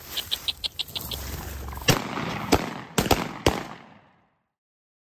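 Footsteps swishing through tall dry grass, with a quick run of about seven short high chirps in the first second and five sharp loud cracks in the second half, before the sound fades out.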